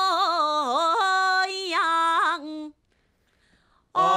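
A woman singing alone, without accompaniment, a short Korean folk-song phrase on the syllables "a-i-yang", her pitch wavering through ornamental turns; she breaks off after a little over two seconds. After about a second's pause a lower sung voice begins near the end.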